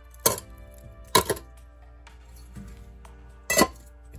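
Three sharp metal clinks, as a metal watch bracelet is lowered into a stainless-steel ultrasonic cleaner tank and the steel lid is set on it. Background music with held notes plays underneath.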